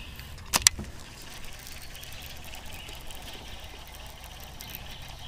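Two sharp knocks in quick succession about half a second in, then a steady low rumble of outdoor noise around a kayak on open water.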